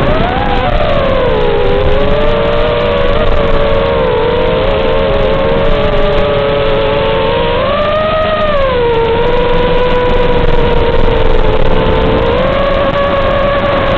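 Brushless motors and 5-inch propellers of a 210 mm FPV racing quadcopter (2204 2300 KV motors) whining, the pitch rising and falling with throttle, with a clear climb in pitch about eight seconds in and another near the end, over a heavy hiss.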